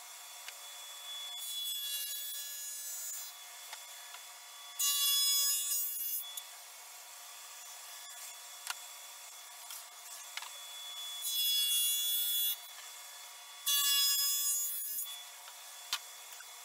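Table saw with a dado stack running steadily while plywood cabinet panels are fed through it. It cuts dados four times, in two pairs, each cut lasting about a second and a half.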